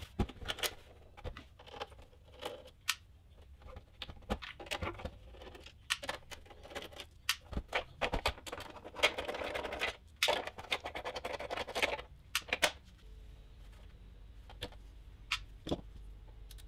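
Clicks, taps and scrapes of a plastic oscilloscope case being handled and unscrewed with a Torx screwdriver, with a longer rubbing scrape about nine seconds in and only a few scattered clicks near the end.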